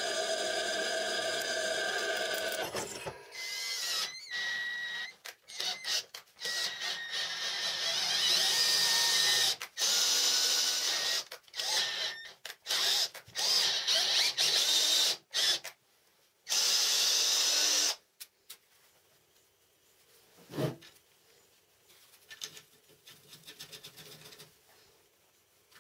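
Electric drill boring holes in steel: it runs steadily for the first few seconds, then in many short bursts on the trigger with brief pauses, and stops about two-thirds of the way in. After that there is one knock and a faint rattle of metal parts being handled.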